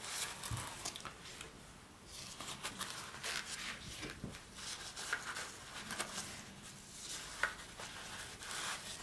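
Soft rustling and rubbing with a few light clicks: a small fabric carry case being handled as the RODE Wireless GO mic units are fitted into it.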